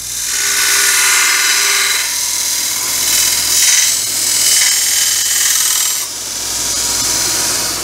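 Small belt grinder running with a metal angle bracket pressed against the belt, grinding a radius on its corner: a loud, steady hiss that eases briefly about two and six seconds in as the piece is shifted.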